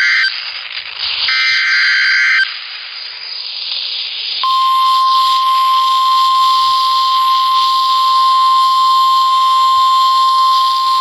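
NOAA Weather Radio emergency alert tones over radio hiss. The first is the end of one burst of warbling SAME data tones, then a second burst about a second later, each about a second long. About four seconds in, the steady 1050 Hz weather radio warning alarm tone starts and holds, signalling that a new warning follows.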